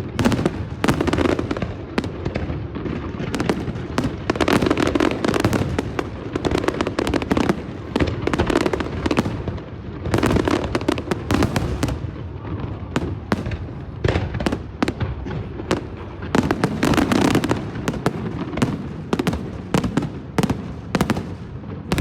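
Fireworks display: many shell bursts and bangs in quick, overlapping succession, with no pause between them.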